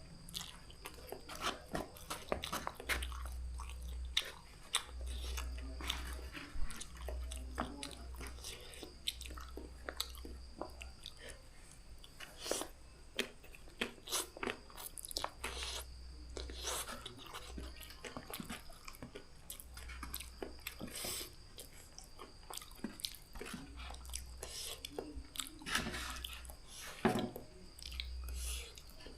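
A person eating Mie Gacoan noodles close to the microphone: chewing and biting, with many short, irregular wet clicks.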